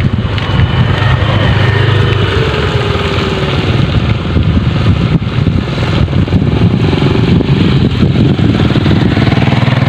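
A small engine running steadily, with a dense, fast-pulsing low sound that holds level throughout.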